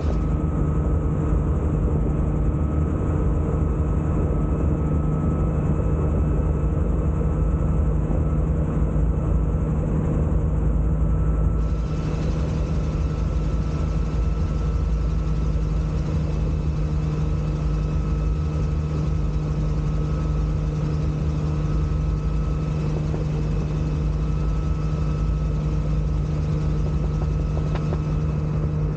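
Bell 47G2 helicopter in flight, its 260 hp Lycoming six-cylinder piston engine and main rotor making a steady drone with a low rumble, heard from the open cockpit. The sound drops slightly in level about twelve seconds in.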